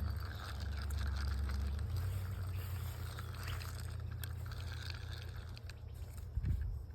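Steady low rumble that drops in level about two seconds in, with faint scattered clicks and a short thump near the end.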